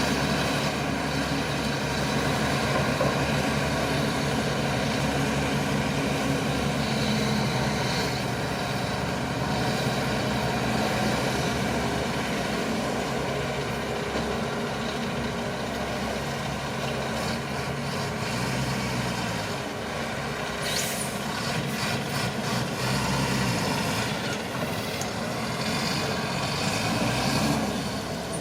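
Shantui crawler bulldozer's diesel engine running steadily, its pitch shifting slightly as the load changes. A few brief sharp noises come about two-thirds of the way through and at the end.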